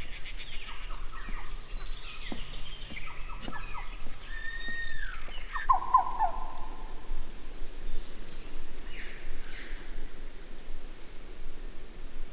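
Tropical forest ambience: a steady high insect drone with scattered short bird calls. Just before the middle it changes abruptly to a higher, pulsing insect trill with brief clusters of chirps.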